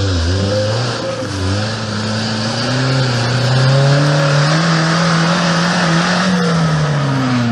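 Off-road 4x4's engine revving hard under load, its pitch climbing slowly over several seconds and dropping back near the end.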